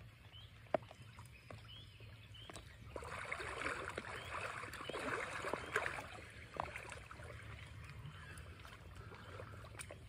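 Water splashing and sloshing around a person's legs as they wade through a shallow creek in rubber waders, loudest from about three to six seconds in. A few light clicks come before it.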